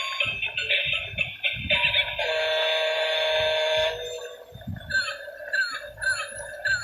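Electronic background music. Near the middle a steady buzzing tone holds for nearly two seconds, then short falling chirps repeat about twice a second.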